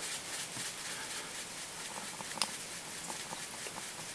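Fingers rubbing fly-tying wax onto the tying thread: a soft, continuous scratchy rubbing full of small ticks, with one sharper click about two and a half seconds in.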